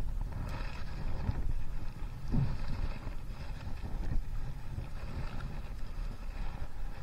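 Stand-up paddleboard paddle strokes splashing in the water every second or so, over a steady low rumble of wind on the microphone.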